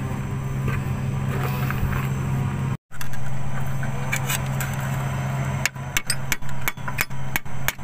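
Quick series of hammer blows, about five a second, starting near the end. They strike the damaged oil seal from above to knock it out of a Komatsu GD535-5 motor grader's circle rotation gear housing. A steady low machine hum runs underneath.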